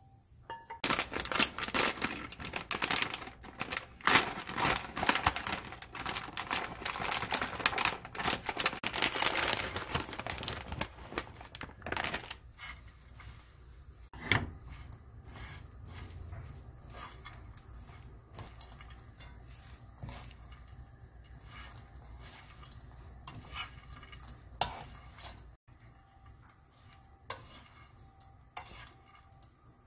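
Dried anchovies rattling in a dry frying pan as they are stir-fried: a dense, loud rattle of the small dry fish for the first ten seconds or so, then lighter scattered ticks and scrapes as they are stirred with wooden chopsticks.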